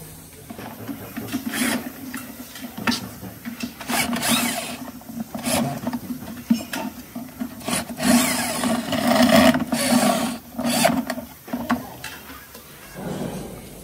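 Cordless drill-driver running in repeated short bursts, driving screws into the bottom of a plastic spin-dryer tub, with clicks and knocks between the bursts.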